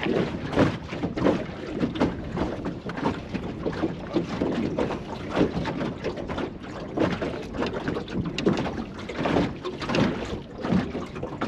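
Strong wind gusting over the microphone on a drifting small boat, an uneven buffeting noise that surges and drops every second or so.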